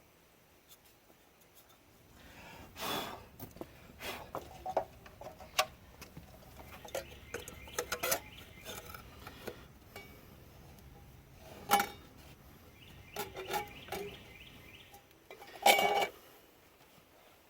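Metal tools and engine parts clinking and knocking as they are handled, in irregular taps with a few louder clanks, the loudest about twelve seconds in and near the end. A faint low hum lies underneath.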